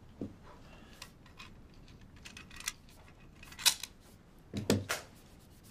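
Pistol being handled and checked, giving a string of sharp metallic clicks and clacks, the loudest a little past the middle and again near the end.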